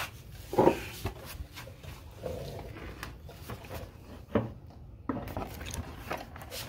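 Rheem water heater's plastic base cover being handled and fitted back into place: scattered knocks and clicks with rubbing of plastic, the strongest knocks about half a second and four and a half seconds in.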